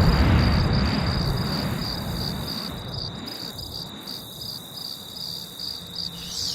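Crickets chirping in an even, pulsing rhythm, the stock 'awkward silence' sound effect, while the low rumble of an explosion dies away over the first few seconds. Near the end a wavering whoosh begins.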